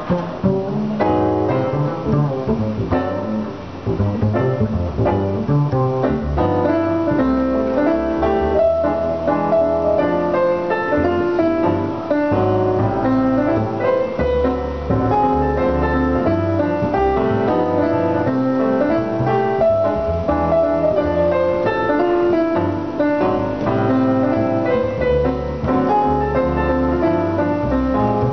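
Jazz duo of digital piano and upright double bass: the piano plays melody and chords over a plucked bass line.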